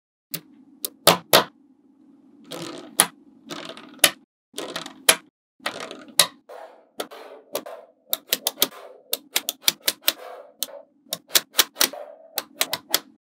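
Small magnetic balls clicking and snapping together as slabs of them are placed and pressed onto a magnet-ball build: many sharp, irregular clicks, with softer rattling between some of them.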